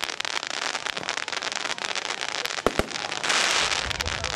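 Fireworks crackling in a dense, continuous rattle of small pops. Two sharp bangs come close together just before three seconds in, followed by a short loud hiss.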